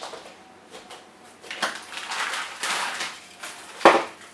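Plastic packets of frozen açaí pulp crinkling and rustling as they are handled on a cutting board, with a single sharp knock near the end.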